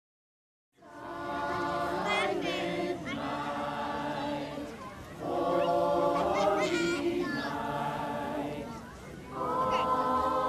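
A choir singing long held notes in phrases a few seconds apart, starting about a second in.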